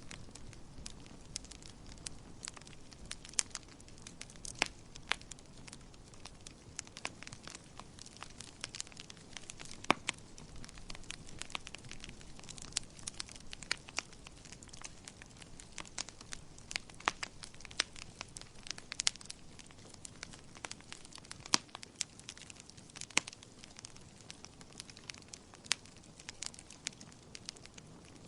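Wood fire burning in a fireplace, crackling and popping in irregular sharp snaps over a soft steady hiss.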